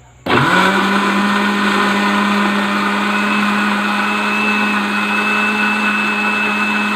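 Electric blender switching on and spinning up quickly, then running at a steady pitch as it purées chopped pineapple with water.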